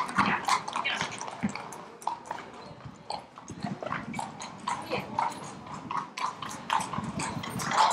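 A horse's hooves clopping on a concrete floor as it walks in and shifts its feet, making irregular sharp clicks and knocks.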